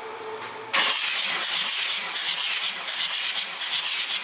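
Mercedes-Benz OM642 3.0-litre V6 turbodiesel being turned over by its starter for a compression test of the first cylinder. The mostly high-pitched whirring noise starts suddenly about a second in and pulses unevenly as the engine cranks.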